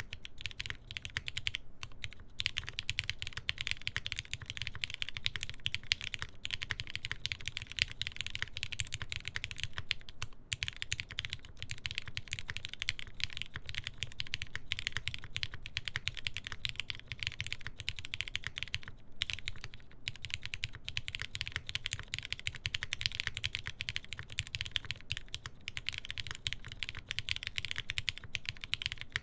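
Continuous typing on a TGR Jane v2 CE mechanical keyboard: full aluminium plate, GMK keycaps, and Cherry MX Black linear switches lubed with Krytox 205g0. The keystrokes run in a dense, steady patter with a few brief pauses.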